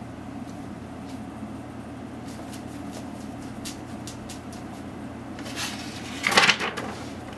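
A few faint ticks, then about six seconds in a short rustling scrape as a cat pushes its head out through a round hole in a wooden box and the rolled paper poster under it unrolls. Steady low room hum underneath.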